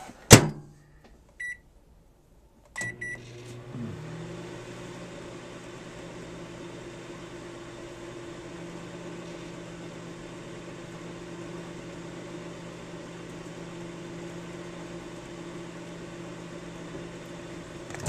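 Microwave oven door shut with a sharp clack, the keypad beeping once and then twice, and the oven starting up about three seconds in and running with a steady low hum.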